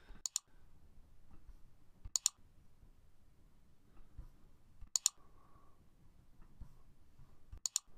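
Computer mouse clicking four times, every two to three seconds, each a quick double click of press and release, as note symbols are dragged and dropped on screen.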